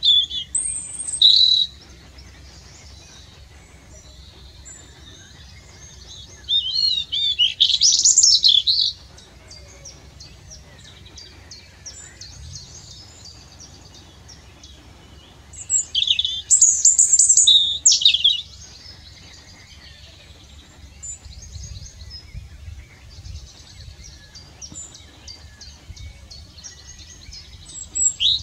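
European robin singing: loud, high, varied song phrases of about two seconds each, repeated roughly every eight to nine seconds, with fainter birdsong from other birds between the phrases.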